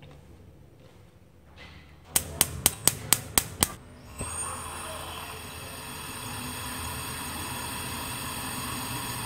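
A gas stove igniter clicking seven times in quick succession. The burner then catches with a whoosh and settles into a steady hiss.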